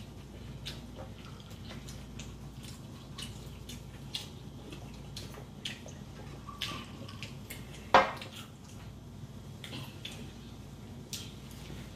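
Eating sounds of fried chicken being chewed and pulled from the bone by hand: scattered small smacks and clicks, with one sharp knock about eight seconds in, the loudest sound.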